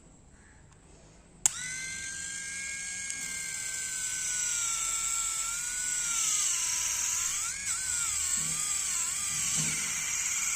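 Battery-powered Agaro electric callus remover switched on with a click about a second and a half in, its roller motor then running with a high whine. The pitch wavers up and down in the second half as the spinning roller is pressed on the heel, grinding off dry, dead skin.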